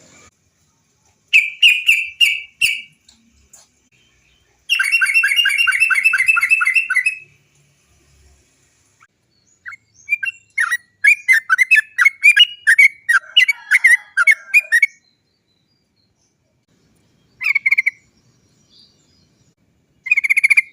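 Yellow-vented bulbul (trucukan) singing in bursts of rapid, repeated 'cok cok cok' notes. About five seconds in comes one long even rolling trill, followed by a varied chattering run and two short phrases near the end.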